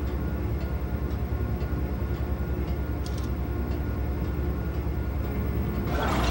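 Steady low rumbling drone of a dark ambient horror soundtrack, with faint high ticks about twice a second. A hiss swells in near the end.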